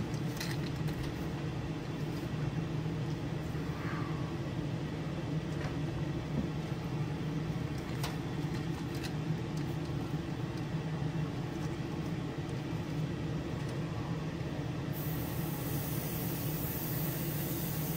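Spray booth exhaust fan running with a steady hum, with a few faint ticks from handling the airbrush and lure stand.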